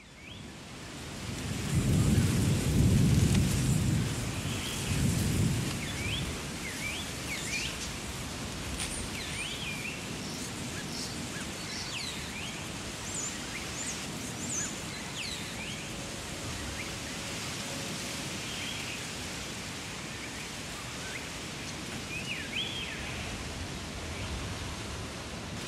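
A huge flock of small birds overhead: a dense, rain-like din of many calls with scattered high chirps and squeaks. A louder low rush comes about two seconds in and dies away by six seconds.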